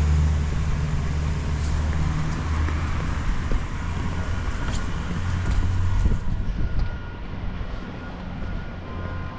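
Low, steady rumble of a motor vehicle's engine on the street below, fading after about six seconds as it moves off.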